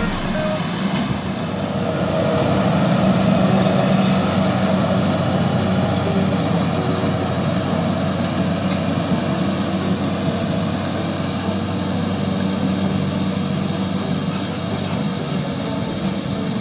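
Kubota DC-60 combine harvester's diesel engine running steadily while it cuts and threshes rice, a continuous machine hum.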